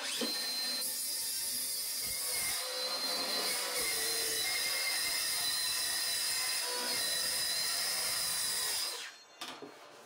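Circular saw cutting through a quarter-inch ABS plastic sheet, trimming it flush with a wooden floor frame; it runs steadily under load and stops suddenly about nine seconds in.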